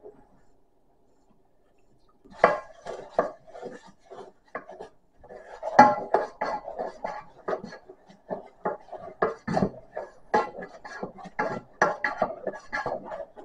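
Wooden spoon stirring flour and beef stock into a thick paste in a metal saucepan, knocking and scraping against the pan in quick, irregular strokes. The stirring starts about two seconds in.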